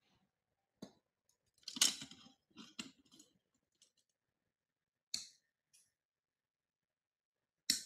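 A handful of short clicks, knocks and scrapes from objects being handled, with silence between them: one about a second in, a busier cluster around two to three seconds, and single ones near five seconds and near the end.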